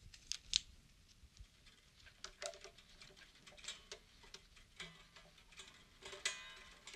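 Faint, irregular small clicks and ticks of hands handling the strings and hardware at the headstock of a 12-string acoustic guitar, with a brief squeak a little after six seconds.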